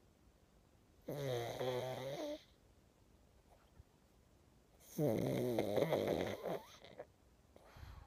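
Sleeping pug snoring: two long, drawn-out snores, one about a second in and another about five seconds in.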